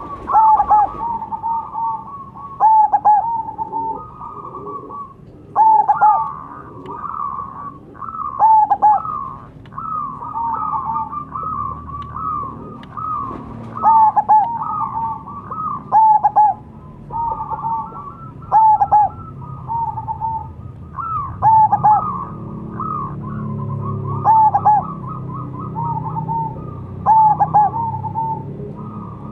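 Zebra dove (perkutut) cooing. Loud phrases of quick coo notes come every two to three seconds, with softer cooing between them.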